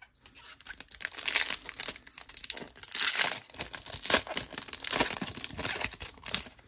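A foil-lined Topps trading card pack wrapper crinkling and tearing as it is ripped open by hand, in uneven bursts of crackle.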